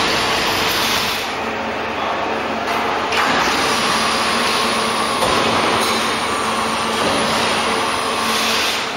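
Running machinery of a slit coil packing line: a steady mechanical hiss with a constant low hum underneath, shifting in level a couple of times.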